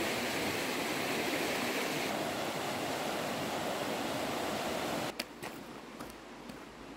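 Steady rush of a rocky river running over shallow riffles and small rapids. About five seconds in it cuts off, leaving a few sharp taps over a much quieter background.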